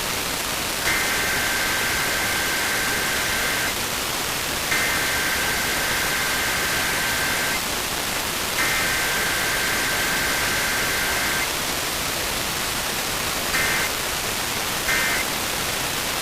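Emergency Alert System test data bursts: three long two-tone digital header bursts of about three seconds each, then short end-of-message bursts near the end, over steady radio static hiss.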